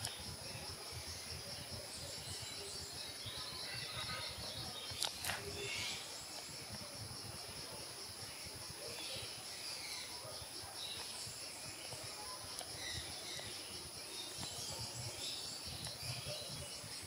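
Steady high-pitched insect chorus with scattered short bird chirps, and a single sharp click about five seconds in.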